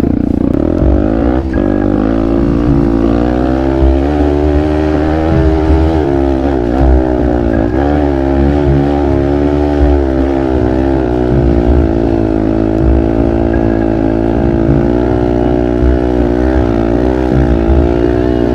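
Trail motorcycle engine running hard under load, its revs rising and dipping over and over as the throttle is worked, with no break in the sound.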